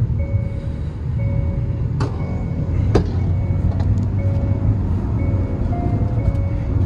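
Cabin sound of a 2021 Hyundai Creta's four-cylinder diesel pulling at about 3000 rpm at road speed, a steady engine and road drone. Over it a dashboard warning chime beeps about once a second, matching a warning on the instrument display.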